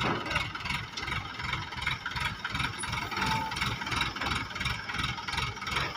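Excavator engine running steadily with an even low throb, about five pulses a second.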